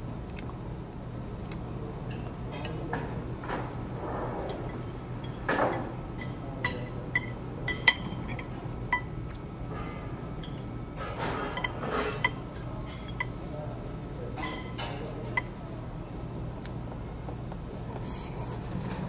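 Metal fork and knife clinking and scraping against white ceramic plates and a bowl while food is cut and eaten. The clinks are scattered, bunched about five to eight seconds in and again around eleven to twelve seconds, with the sharpest near eight seconds, over a steady low hum.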